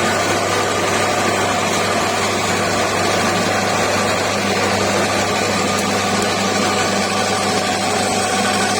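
Stainless-steel skin-separating machine running steadily, its motor giving an even hum and whir that does not change.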